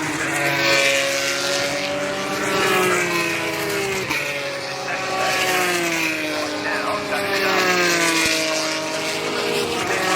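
Formula 3 cars' 3.4-litre Mecachrome V6 engines at racing speed, several cars in succession, each engine note dropping in pitch as it goes past.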